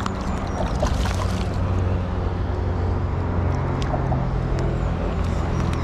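Steady low hum of road traffic, with a few faint clicks over it.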